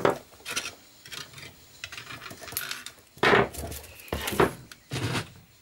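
Side cutters snipping thin nickel-plated battery strapping with a sharp click right at the start. The springy metal strip and its roll are then handled, giving irregular light metallic clinks and rattles, loudest twice after about three seconds.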